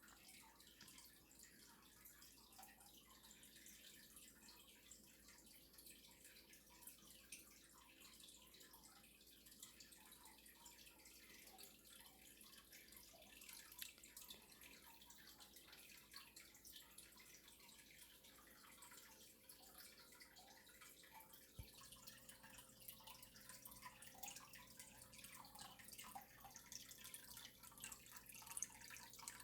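Near silence: room tone with a faint low hum and scattered tiny ticks. A soft click comes about 21 seconds in, after which the hum shifts slightly.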